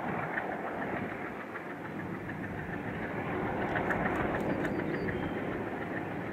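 Pair of MLW diesel locomotives hauling a heavy container freight train, their engines running steadily under load, with wheels ticking along the rails; the sound swells slightly as the train draws closer about four seconds in.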